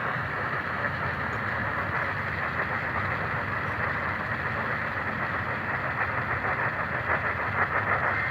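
Steady hiss of radio static on a received emergency-alert broadcast, thin and muffled with little top end, with faint crackle near the end.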